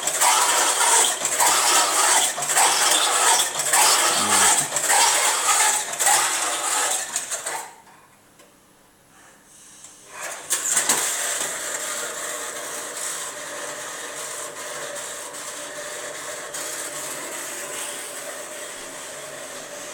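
Washing machine running: a loud, rapid metallic clattering and rattling from the turning drum that stops abruptly after about seven and a half seconds. After a short quiet pause there is a clunk, then a steady whirring as the drum turns again, slowly growing fainter.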